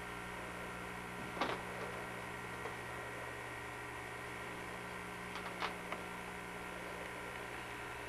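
Steady hum and hiss of an old camcorder recording, with a few brief soft knocks about a second and a half in and again around five and a half seconds in.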